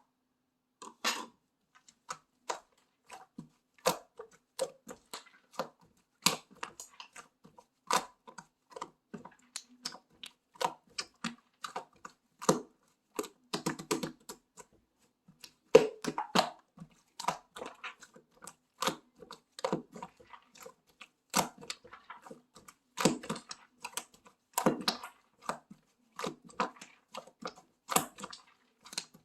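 Slime being kneaded and squeezed by hand, making an irregular run of clicks and small pops.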